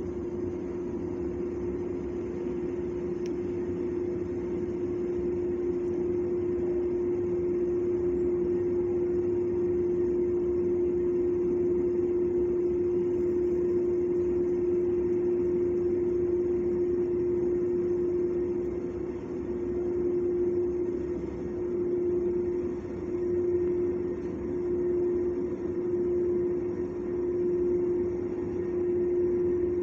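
A steady mechanical hum with one strong, constant tone, swelling and fading in loudness in the second half.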